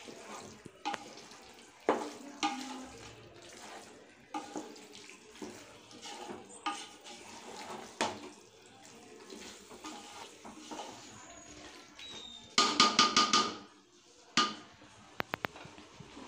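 A metal spoon stirring thick marinated chicken in a metal pot, with wet scraping and scattered clinks against the sides. About three-quarters through comes a quick run of loud, ringing metallic clinks, the loudest sound, then a few sharp clicks.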